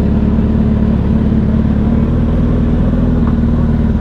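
Sportbike engine running steadily at low revs as the bike rolls slowly.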